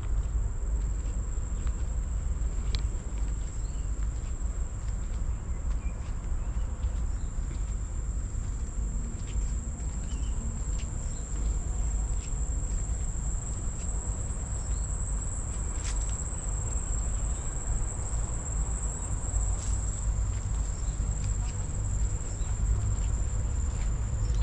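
Insects trilling in one steady, high-pitched, unbroken note over a low rumble, with a few faint clicks.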